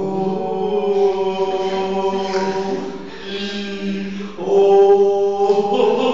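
A young man's voice chanting in long, drawn-out held notes, in two phrases with a short break about halfway through; the second phrase is louder.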